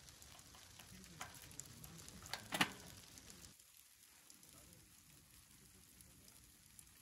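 Snow pellets falling, a faint steady hiss of many light ticks. A few sharper clicks stand out between about one and three seconds in.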